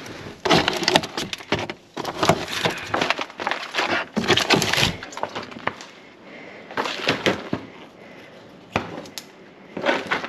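Plastic food packaging (clear clamshells, trays and bags) crackling and clattering as it is rummaged through and lifted out of a plastic wheelie bin. Busy, dense handling for the first five seconds, then sparser rustles with one sharp click near the end.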